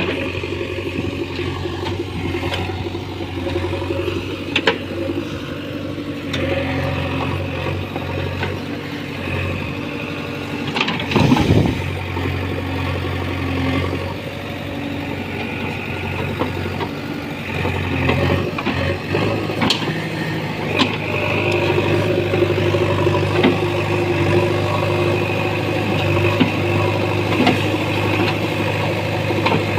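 JCB 3DX backhoe loader's diesel engine running steadily, its pitch shifting up and down as it takes load, with a few sharp metallic knocks, the loudest about eleven seconds in.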